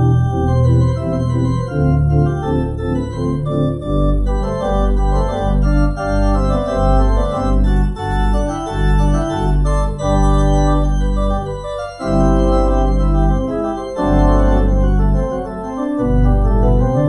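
Organ playing a closing voluntary: sustained full chords, with a deep pedal bass line that comes in about four seconds in and steps from note to note.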